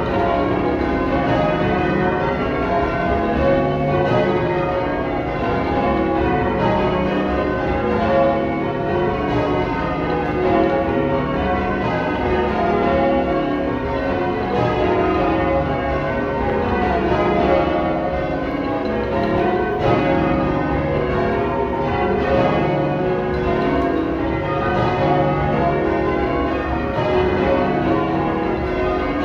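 Change ringing on a ring of twelve church bells, tenor about 28 cwt in C#: the bells strike one after another in a rapid, unbroken stream, the rows sounding as cascading runs of strikes.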